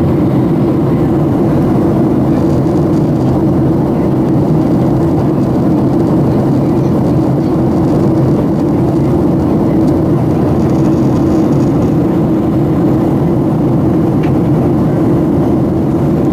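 Steady in-flight noise of a Boeing 737-700, its CFM56-7 turbofan engines and airflow making an even low drone with a held hum.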